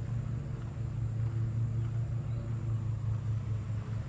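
A steady low hum, like distant traffic or machinery, with a faint, high, continuous insect trill above it.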